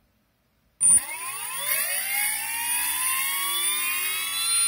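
Propdrive 4248 brushless outrunner motor, driven by a RedBrick ESC freshly flashed with SimonK firmware, starting suddenly about a second in and spinning up with a rising whine that levels off to a steady pitch near the end.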